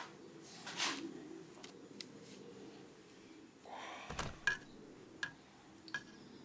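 Small metal parts being handled: a string of light clicks and taps from the miniature engine's cylinder head and valve, with a brief rustle and knock about four seconds in.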